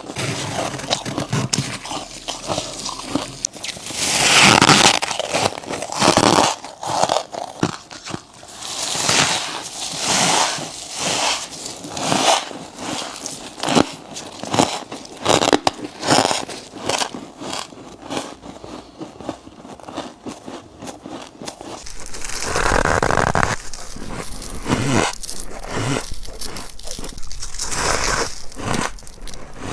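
Close-up bites and chewing of freezer frost: a rapid run of crisp crunches and crackles, the texture growing denser and fuller about twenty-two seconds in.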